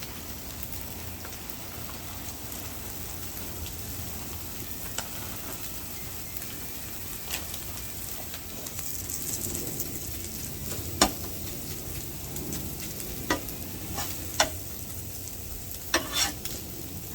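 Food sizzling steadily on a Blackstone flat-top griddle, with a few sharp taps in the second half, the loudest about eleven seconds in.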